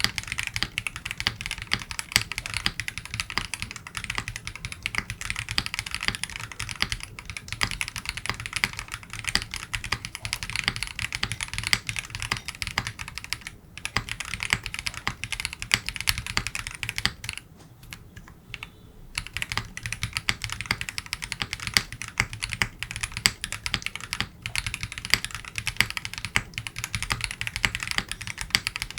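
Continuous fast typing on a Qwertykey QK60 60% mechanical keyboard with JWICK Gingermilk switches on an aluminum plate, GMK keycaps and foam inside the case. The keystrokes come in a dense run, with a short pause about eighteen seconds in.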